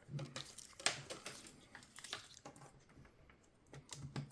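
Faint handling noise of a laptop being turned over and its power cable plugged in: scattered light clicks and knocks, with one sharper click about a second in.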